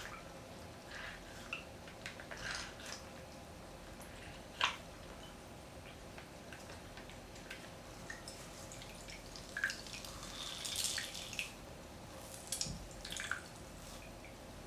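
Beauty Blender makeup sponge being soaked and squeezed in a bowl of water: faint, scattered drips and small splashes, a little busier near the end.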